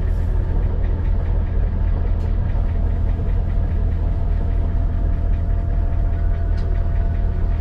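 Boat engine running steadily at constant speed, a low, even drone with a fast regular pulse.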